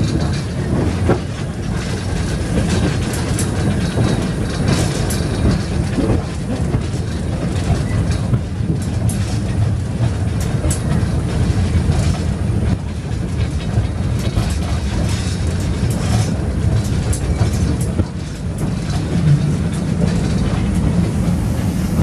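Flying Scotsman steam locomotive running, heard from its footplate: a steady, loud low rumble with scattered sharp clanks and clicks throughout.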